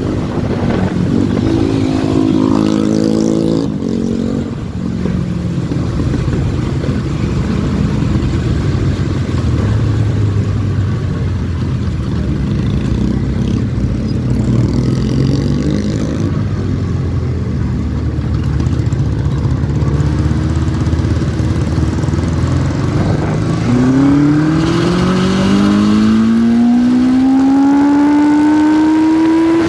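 MRT Vintage 400 motorcycle engine heard from on board while riding. It revs up briefly about two seconds in, runs fairly steadily, then climbs steadily in pitch over the last six seconds as it accelerates through a gear, falling off right at the end as the rider shifts.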